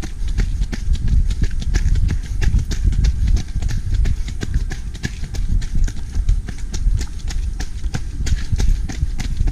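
Fast, regular running footfalls on a gravel and dirt trail during a downhill descent, about three strikes a second, over a low rumble of wind buffeting the microphone.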